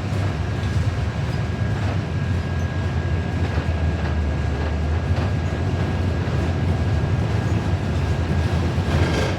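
Cabin noise inside a New Flyer XD40 diesel city bus: a steady low drone of the engine and drivetrain with road noise and a faint steady high whine.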